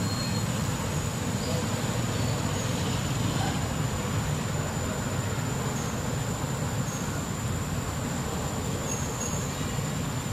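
Steady outdoor background noise: a low rumble with a thin, steady high-pitched whine above it, and no distinct events.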